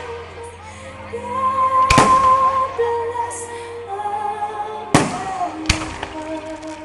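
Aerial firework shells bursting in three sharp bangs, about two seconds in and twice more close together about five seconds in, over music playing steadily throughout.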